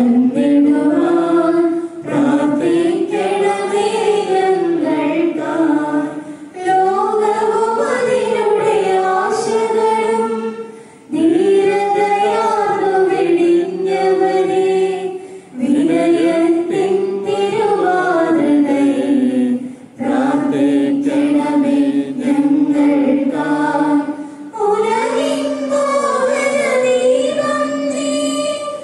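A group of voices singing a church hymn in phrases of about four seconds, with a short breath between each phrase.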